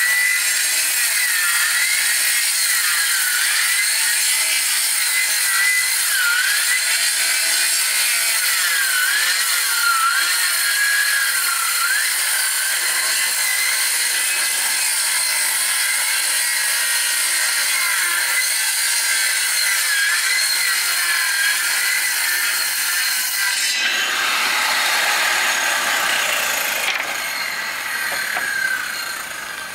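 Wood being sawn: a steady, loud rasping, with a pitch that dips and recovers every second or so in the first half. The sound changes abruptly about 24 s in and falls off near the end.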